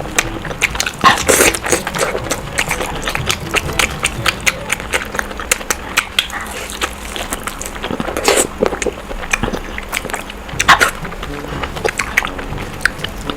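Close-miked eating sounds: rapid wet chewing, lip smacks and mouth clicks of someone eating fried eggs, with a few louder smacks near the start, about eight seconds in and near eleven seconds.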